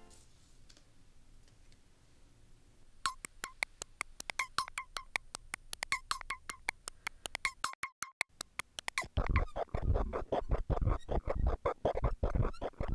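Electronic background music. It is nearly quiet for the first few seconds, then a quick, plucky synthesizer rhythm starts about three seconds in. After a brief break near eight seconds, a louder, fuller electronic dance beat comes in.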